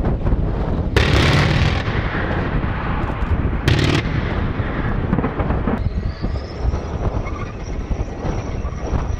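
Self-propelled anti-aircraft gun vehicle firing its cannons: a burst of fire lasting nearly a second about a second in, then a shorter burst near four seconds, over a steady low rumble. From about six seconds a thin high whine rises and then holds.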